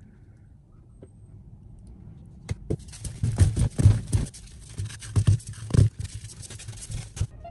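Soap-making handling noise: a run of irregular dull knocks and thumps over a steady hiss, starting about two and a half seconds in and cutting off abruptly near the end.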